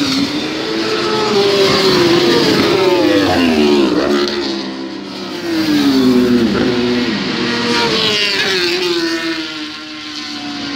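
Superbike engines at high revs passing one after another, three or four in turn. Each engine note falls in pitch as the bike goes by.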